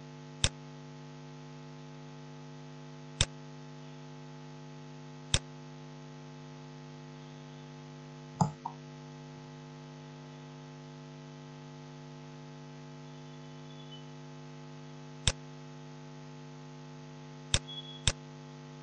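Steady electrical mains hum throughout, with sharp single computer mouse clicks every few seconds, two in quick succession near the end. There is also a duller knock about eight seconds in.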